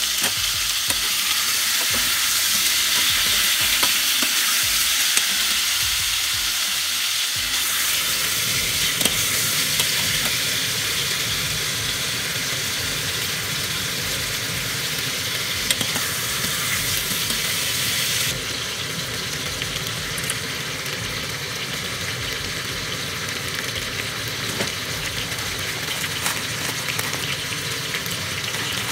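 Meat and onions sizzling in a stainless steel pot, a steady hiss, with a few small knocks as potato chunks are cut off with a knife and dropped in.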